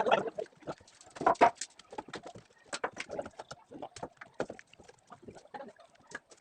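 Irregular knocking and clattering of shuttering (wooden and metal formwork) being stripped off, with louder bangs at the start and about a second in.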